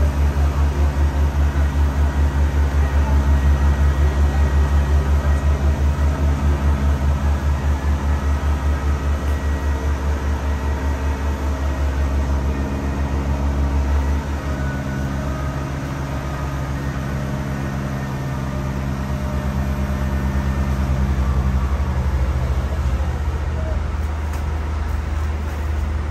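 Truck-mounted crane's engine running steadily under load, a deep pulsing hum. About halfway through the hum shifts in pitch and steadies.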